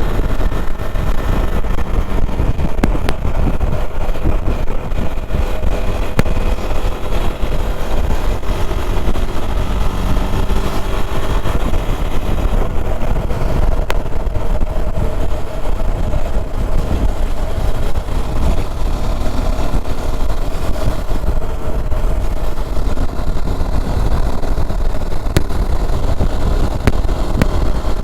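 KTM Duke 390's single-cylinder engine running steadily while riding, its revs shifting only a little, over a heavy rumble of wind noise on the mic.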